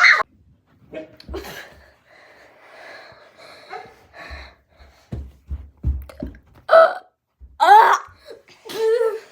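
A child making short, high-pitched, wordless silly vocal noises. There are three loud bursts near the end, with a few dull thumps before them.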